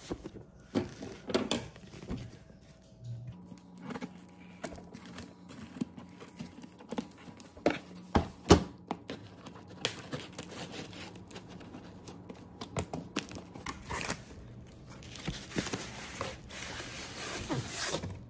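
Cardboard shipping box being cut open and handled: scattered clicks, knocks and scrapes of a metal cutting tool and hands on the cardboard and tape. Near the end comes a longer stretch of crinkling and rustling as the paper-wrapped item is slid out of the box.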